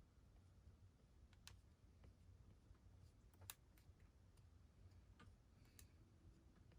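Near silence with a few faint, sharp clicks, scattered and irregular; the loudest comes about halfway through.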